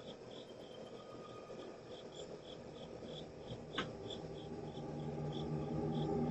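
A cricket chirping steadily in short, evenly spaced chirps, roughly three a second. There is a single sharp click about four seconds in, and low music fades in near the end.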